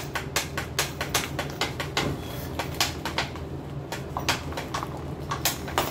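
Rigid clear-plastic blister packaging of a toothbrush crackling and clicking in quick irregular snaps as hands twist and pull at it, trying to get it open.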